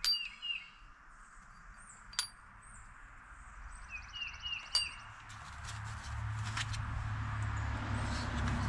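A few sharp metallic clinks of scooter variator rollers and parts being handled and set down, with small birds chirping. From about six seconds in, a low rumble builds underneath with a scatter of small clicks.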